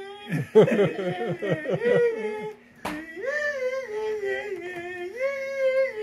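A wavering, hummed-sounding tune with a steady low drone underneath, played or hummed by a man holding a small object to his mouth. People laugh during the first two seconds, and a sharp click comes about halfway through.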